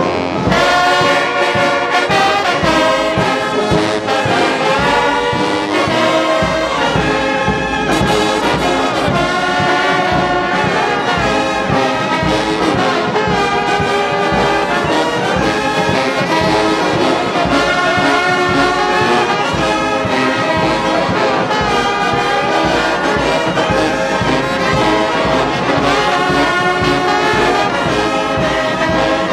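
Large wind band of saxophones, trumpets and other brass playing a tune together, loud and unbroken.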